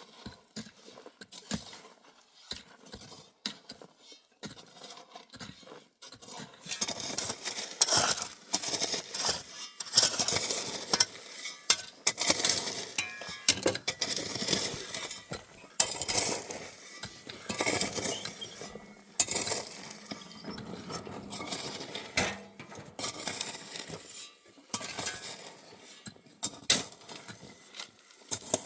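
Irregular clattering, clinking and scraping of hard objects being handled, sparse at first and then busy from about six seconds in.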